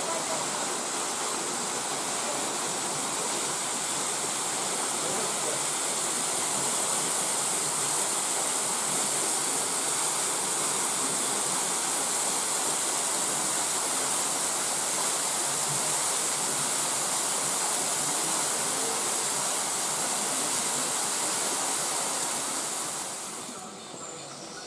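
Waterfall: a steady rush of falling water that drops away abruptly near the end, leaving a much quieter background.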